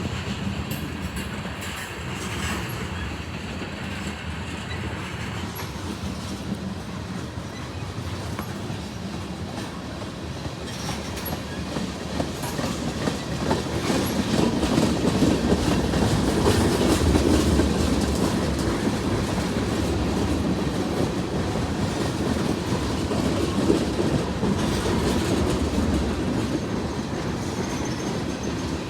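CSX mixed freight train rolling past, the steady noise of railcar wheels on the rails. About midway it grows louder with a deeper rumble for roughly ten seconds as the mid-train DPU diesel locomotive goes by, then eases back.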